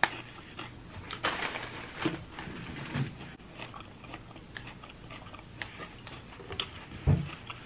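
Chewing and crunching of raw kale salad, with scattered small clicks, and a short low voice sound about seven seconds in.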